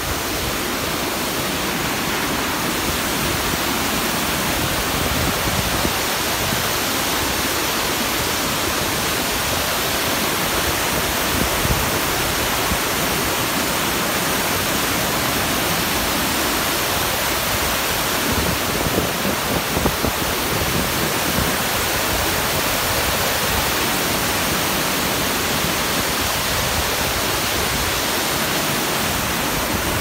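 Waterfall and rocky mountain stream: loud, steady rush of white water pouring over rocks.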